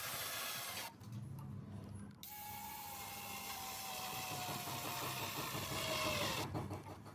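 A small motor whirring in two runs, the second one with a pitch that slowly falls before it cuts off.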